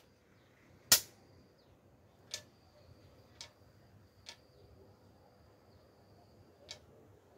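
Wooden xiangqi (Chinese chess) piece slapped down onto the board with one sharp, loud clack about a second in, followed by four much fainter clicks of wooden pieces being set down.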